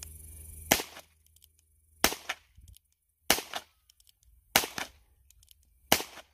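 Heritage Rough Rider .22 LR single-action revolver firing five shots, evenly spaced about one every 1.3 seconds.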